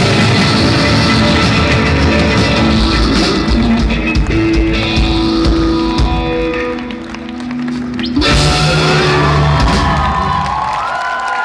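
Live rock band playing the loud closing section of a song on electric guitar, drums and keyboards. About eight seconds in a final hit leaves a held chord ringing, and the crowd begins cheering and whistling near the end.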